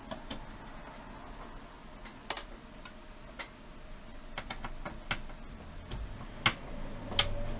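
Scattered light clicks and taps of small parts on a VCR tape-deck mechanism being handled and worked loose, with a few sharper clicks in the middle and near the end.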